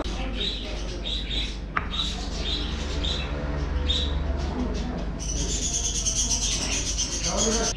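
Small birds chirping in short, high notes about once or twice a second, turning into a denser, higher twittering about five seconds in, over a steady low hum.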